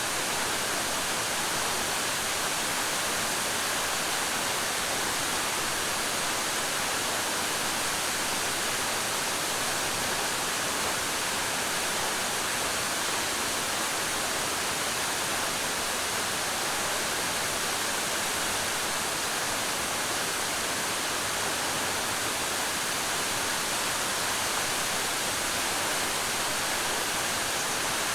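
Suok Waterfall's water falling: a steady, even rush of falling and splashing water with no change.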